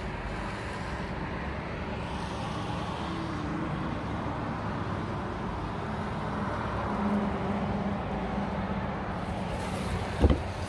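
A road vehicle driving past: its tyre and engine noise rises slowly to a peak and then eases off. A short thump near the end.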